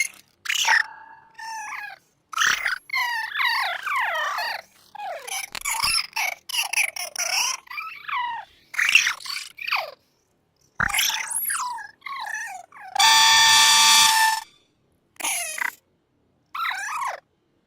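Morph's squeaky clay-character hiccups and gibberish voice run through a 'T-Major' effects edit: short, high chirping and warbling bursts with brief gaps, their pitch swooping up and down. About 13 seconds in, a harsh steady buzzing tone lasts about a second and a half.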